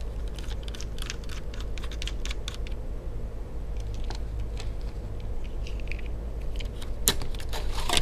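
Light plastic clicks and rattles from handling a Dell Latitude laptop and working its side hard-drive caddy open, dense in the first few seconds, with two sharper clicks near the end. A steady low hum runs underneath.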